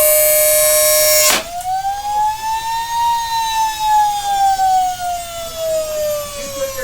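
Salvaged vacuum-cleaner motor whining steadily at high speed while spinning a CD, then a sharp crack about a second in as the disc shatters. The whine then rises briefly, with the motor freed of the disc, and falls slowly as the motor winds down.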